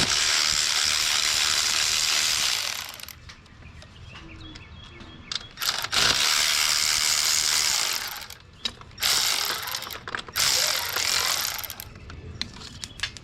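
Ratchet wrench clicking rapidly in four runs as nuts are spun off the studs: one of about three seconds at the start, one of about two seconds midway, and two shorter ones near the end.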